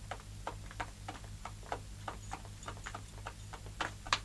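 Irregular sharp clacks of footsteps and a horse's hooves on hard ground, about three or four a second, with two louder knocks near the end, over a steady low hum in the soundtrack.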